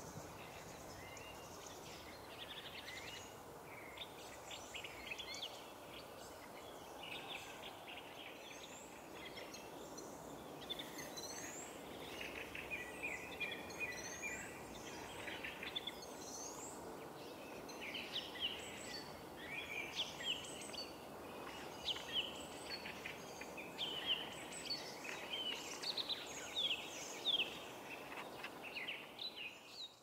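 Fieldfare singing: a string of short high chirps and quick whistled slides up and down, getting busier and louder from about ten seconds in, over a steady background hum.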